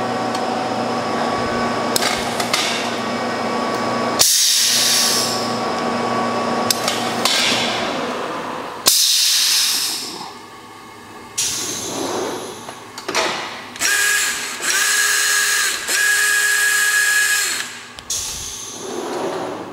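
Taylor 20-section panel clamp carrier's pneumatic drive running, turning the clamp sections forward, with a steady mechanical drone and loud hissing bursts about four and nine seconds in. A steady whining tone joins in during the later part.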